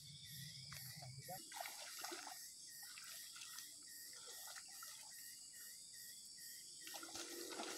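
Faint sloshing and trickling of shallow muddy swamp water as people wade through it, over a steady high-pitched hiss with a faint chirp repeating a few times a second.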